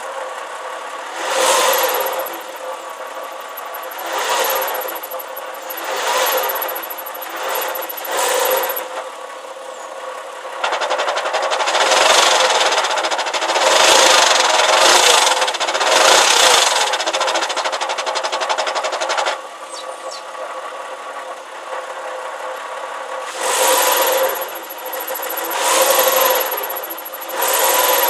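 Porsche Boxster 986 flat-six idling, with a rumbling and squeaking from the gearbox that swells and fades over and over as the clutch pedal is worked, including a longer, louder stretch midway. The noise goes away with the clutch pedal pressed in. It comes from a clutch changed less than 1000 miles ago, and its cause is unknown to the owner.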